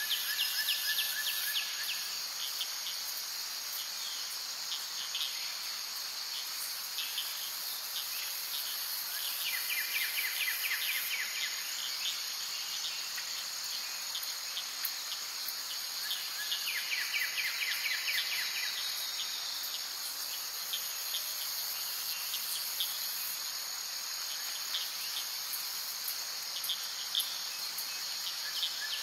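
Insect chorus: a steady high shrill chirring, with a louder pulsed trill that comes three times, several seconds apart.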